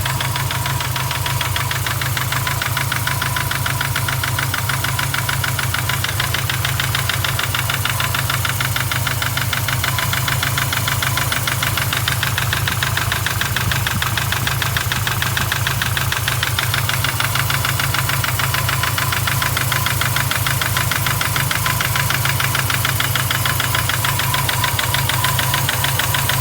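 Subaru EJ25 flat-four boxer engine, freshly rebuilt with forged pistons, running at a steady idle with a fast, even ticking. The owner hears the tick from the passenger side and finds that it fades once the engine is fully warm.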